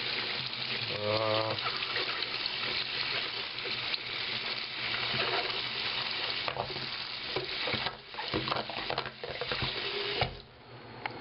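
Water running from a tap and splashing over a phone held under it, a steady hiss that stops about ten seconds in.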